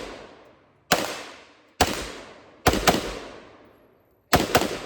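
Six gunshots from one firearm, spaced unevenly: single shots about a second apart, then two quick pairs. Each shot rings out with a long fading echo.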